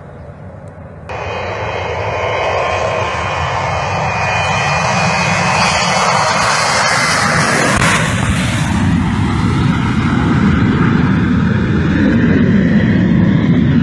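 Boeing 727-200 cargo jet's three Pratt & Whitney JT8D engines passing low overhead at power, a loud jet noise that swells in about a second in, is strongest around the middle and stays loud to the end.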